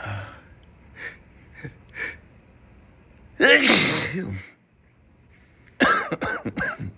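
A man with a head cold sniffs a few times, then sneezes loudly about three and a half seconds in. Another loud burst of voice and breath comes near the end.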